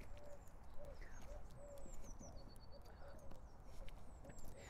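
Faint birdsong: small birds giving high chirps and a short, quick trill, with a pigeon cooing in a lower, repeated phrase underneath.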